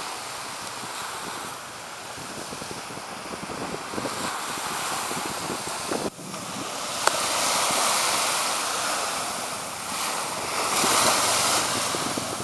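Surf washing in and wind buffeting the microphone: a steady rushing noise that grows louder in the second half, with a brief drop and a single click a little past halfway.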